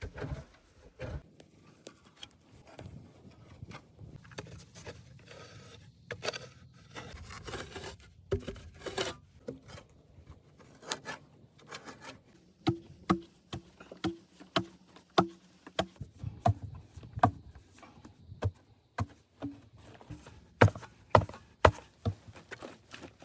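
Hand-tool work on wood: scraping and rubbing with scattered clicks at first, then a run of hollow knocks about two a second from about halfway, with the sharpest strikes near the end.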